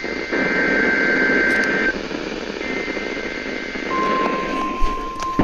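NOAA Weather Radio transmitter WWG52 sending its weekly test over radio static: a screeching two-tone SAME data burst (Specific Area Message Encoding header) that ends about two seconds in, then, about four seconds in, the steady single-pitched warning alarm tone starts.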